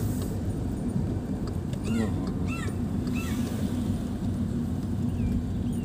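Steady low engine and road rumble of a car driving, heard from inside the cabin, with a few short high chirping calls coming and going over it.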